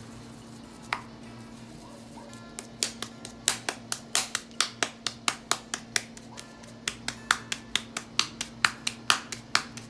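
Hands patting and slapping masa dough into shape for sopes: a run of sharp slaps, about three or four a second, starting a few seconds in and going on to near the end, after a single click about a second in.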